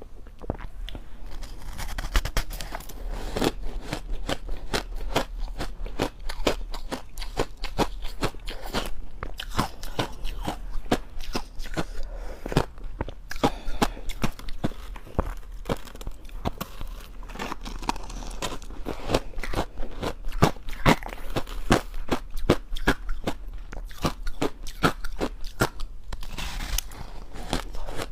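Crushed ice dusted with matcha and milk powder being bitten and chewed close to the microphone: a continuous run of sharp, irregular crunches and cracks as the ice breaks between the teeth.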